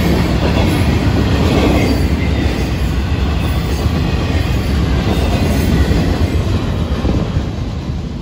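Freight cars of a Florida East Coast Railway train rolling past close by: a steady rumble of steel wheels on rail, easing off a little near the end.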